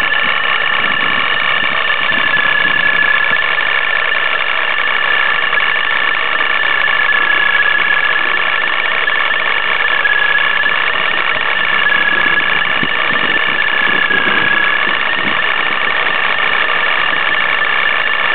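Supercharged Nissan 350Z's 3.5-litre V6 with a Vortech supercharger idling steadily, with a rattling noise, "sounds like car is falling apart", over a steady high tone that wavers slightly.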